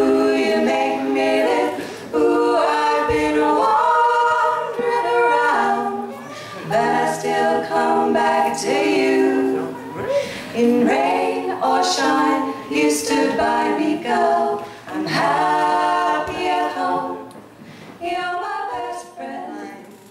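Three women singing a cappella in close harmony, in long held phrases with short breaths between them.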